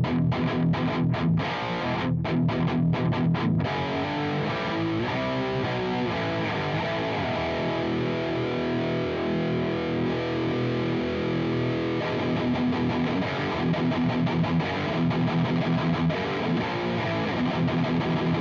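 Electric guitar through a JOYO Dark Flame distortion pedal, a clone of the Revv G3, playing with high gain. It opens on a tight chugging riff with short stops, moves into held notes and a melodic line, and goes back to chugging rhythm about two-thirds of the way through.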